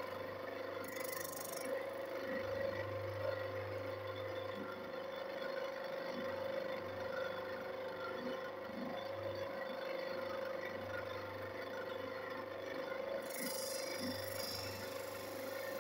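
Homemade saw-chain sharpener, a 300 W electric motor spinning a thin 4 mm grinding wheel, running with a steady whine. About a second in, and again near the end, the wheel grinds against a chain tooth with a short hiss, between scraping and rubbing as the chain is moved along its holder.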